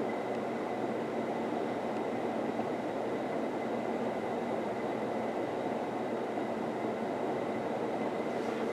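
1984 Casablanca Four Seasons ceiling fan running fast, its blades making a steady rush of moving air.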